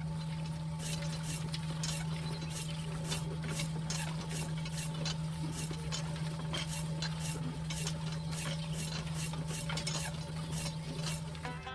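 Small electric motor of a DIY mini bulldozer running steadily with a low hum and a regular click about two to three times a second, cutting off suddenly near the end.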